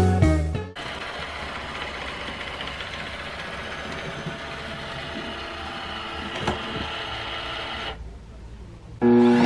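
Background music cuts off, then a robot vacuum runs with a steady whir as it drives into its self-emptying dock. Near the end it goes quieter, and then the dock's suction motor starts loudly with a whine as it empties the robot's bin.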